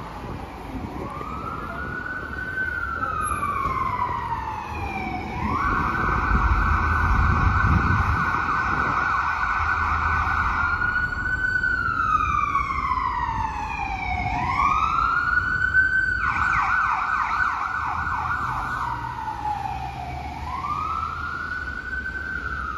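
An emergency vehicle siren sounding: a slow wail rising and falling in pitch, switching twice to a rapid yelp, over a low rumble of city traffic.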